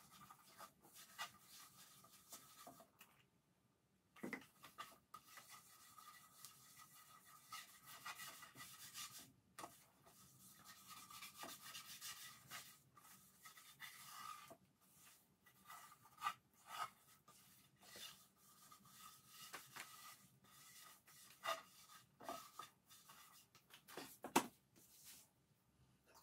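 Cloth rag rubbing mineral oil into a carved wooden tray: faint, irregular wiping strokes with a few light knocks.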